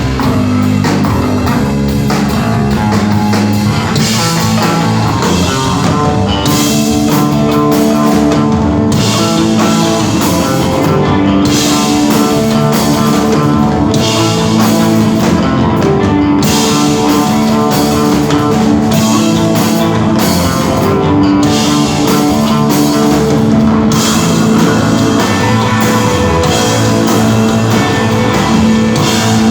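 A rock band playing live without vocals: electric guitar and bass holding ringing, sustained notes over a drum kit. The cymbals wash in and out every couple of seconds.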